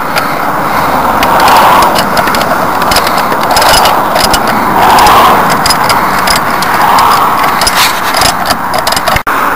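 Classic VAZ screw jack being wound up by its crank handle, creaking and scraping in a loose rhythm that swells every second or two, with scattered clicks as the handle turns.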